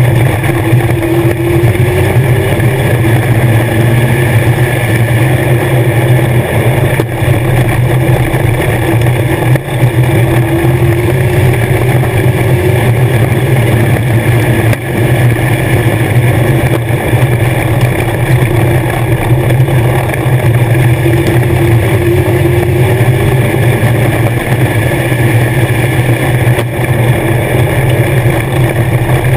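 A Legends race car's Yamaha 1250 cc motorcycle four-cylinder engine running hard at high revs, heard from inside the cockpit. Its pitch swells slightly every ten seconds or so, and its level dips briefly twice.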